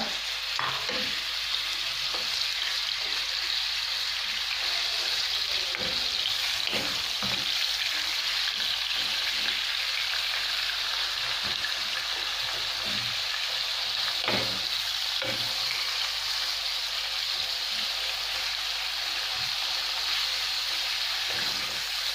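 Minced meat sizzling steadily as it fries in oil in a frying pan. Now and then a wooden spatula scrapes the pan as it breaks up and stirs the meat.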